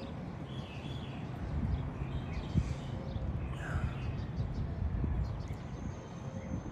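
Outdoor ambience: a steady low rumble, with small birds chirping now and then.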